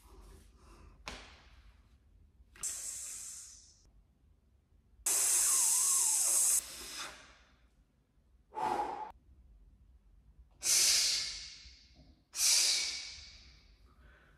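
A man exhaling hard through the mouth in a series of loud breathy blasts, the longest and loudest a few seconds in, with a short voiced grunt about midway. They are the efforts of flexing and posing.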